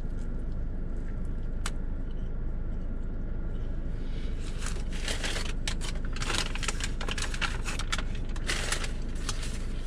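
Eating a bacon barbecue steakburger with crispy fried onions: irregular crackly, crunchy chewing and handling noises close to the microphone, starting about four seconds in. A steady low hum runs underneath.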